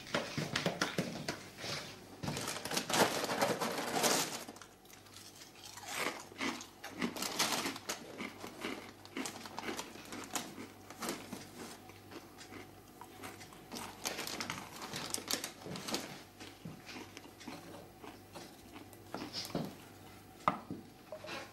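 A crinkly packet being handled and torn open, and a wooden spoon stirring and knocking in an enamel saucepan: irregular small rustles and clicks, busiest in the first four seconds.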